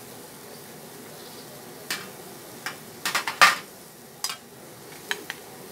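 Chicken sizzling over a charcoal grill, a steady hiss with scattered sharp pops and clicks. The loudest cluster of pops comes about three seconds in.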